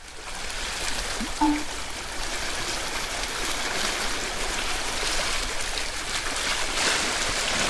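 Steady rush of running, splashing water with many small drips and spatters, and a brief chirp about a second and a half in.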